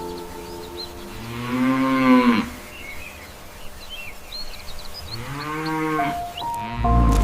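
Cow mooing twice, each a long call of about a second that rises and falls in pitch, over soft background music with faint bird chirps.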